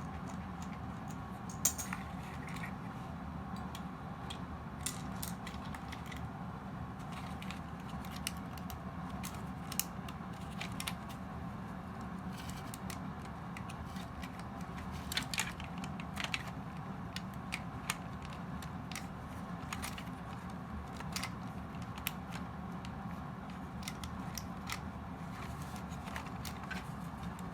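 Scattered small clicks and taps of plastic parts being handled and pried as the eye LEDs are worked loose from a toy robot's head, a few louder clicks among them, over a steady low hum.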